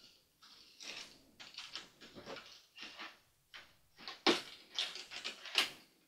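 A plastic toy storage wheel and its cardboard packaging card are handled and pulled apart, giving irregular rustling, scraping and light clicks. The two loudest knocks come about four and five and a half seconds in.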